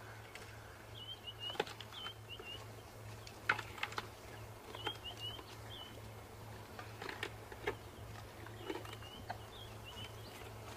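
African elephant chewing a branch, the wood crunching and snapping between her molars in irregular bursts. A bird calls in three short chirping phrases over the chewing.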